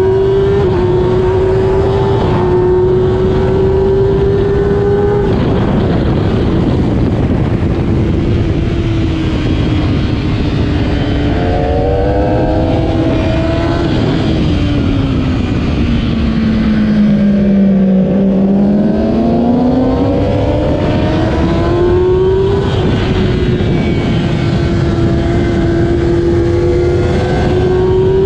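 2008 Kawasaki ZX-10R's inline-four engine at race pace, with a few quick upshifts in the first five seconds. The revs then sag, fall to their lowest about 18 seconds in, and climb steadily again, over a steady rush of wind.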